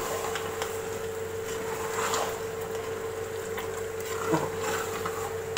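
Spoon stirring a thick spinach and mutton curry in an aluminium pressure-cooker pot, with a few soft scrapes and knocks over a steady hum.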